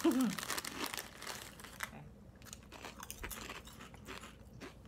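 Crisp truffle potato chips crunching as they are chewed, with the foil chip bag crinkling in the hands: a run of short sharp crackles. A brief "mm" sounds at the very start.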